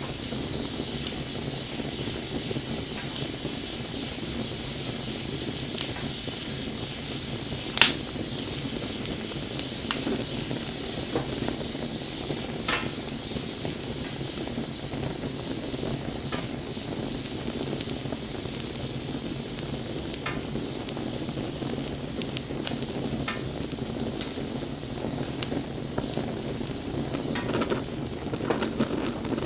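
Wood bonfire burning: a steady low rush of flames with scattered sharp crackles and pops, the sharpest about eight seconds in.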